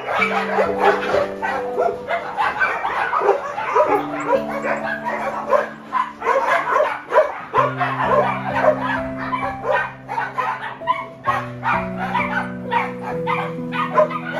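A large pack of dogs barking and yipping, many short calls overlapping, over background music of slow sustained chords.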